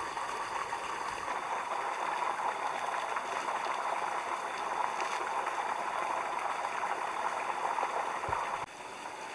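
Stream water running steadily, a rushing hiss. It drops suddenly to a quieter level near the end.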